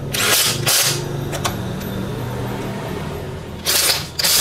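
Bosch GDX 18V-200 cordless impact wrench hammering on a car wheel's lug nut in short trigger bursts, tightening it by feel: two quick bursts in the first second and another near the end.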